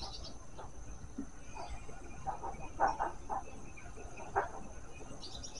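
Insects droning with a steady high tone, with a quick run of short animal calls about halfway through and one more a second later.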